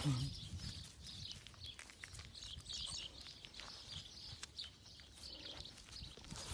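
Faint bird chirps in the background over soft rustling and handling noise in grass as a puppy is picked up.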